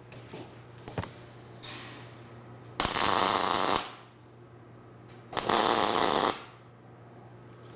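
MIG welder tack-welding expanded steel mesh to a steel grill-top ring: two crackling arc bursts, each about a second long, the first about three seconds in and the second about two and a half seconds later, with a few small clicks before them over a steady low hum.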